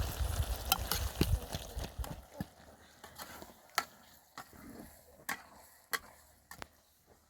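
A low rumble for about two seconds, then a quieter stretch of scattered sharp clicks and knocks, one every second or so.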